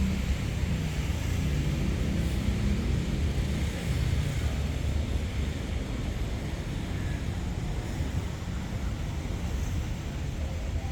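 Low, steady rumble of an approaching Hitachi diesel-electric locomotive.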